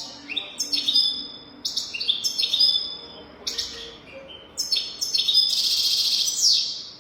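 European goldfinch singing: a run of quick twittering chirps and trills, ending in a long buzzy trill.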